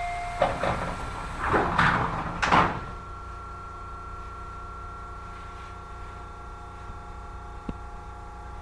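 Tobu 30000 series commuter train car standing at a station: the sliding doors close in the first three seconds with a burst of noise and knocks, loudest about two and a half seconds in. After that the stopped car hums with several steady tones, and there is a single click near the end.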